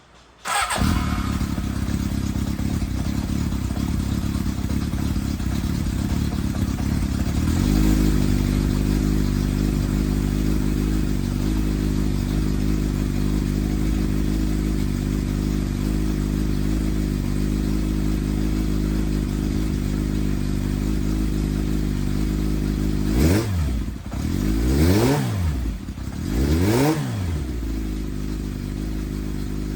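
Air-cooled inline-four Kawasaki motorcycle engine idling steadily after a valve-clearance shim adjustment, then revved in three quick throttle blips near the end, each rising and falling in pitch.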